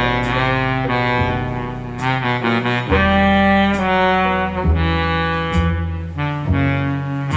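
Jazz music played back through hi-fi loudspeakers driven by a TPA3255 class D amplifier and picked up by microphone: a saxophone line over changing low bass notes.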